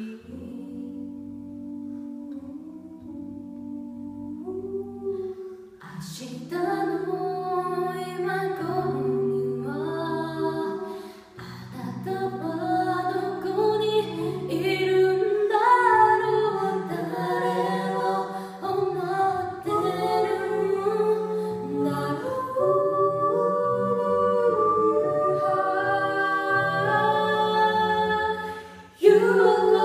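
Mixed four-voice a cappella group, two women and two men, singing in harmony. For about the first six seconds the voices hold soft sustained chords, then they come in suddenly fuller and louder, with a short drop just before the end.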